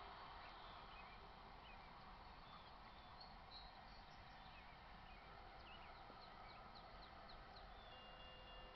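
Quiet rural background with small birds chirping now and then. About eight seconds in, a railroad grade-crossing warning bell starts ringing steadily as the crossing signals activate for an approaching train.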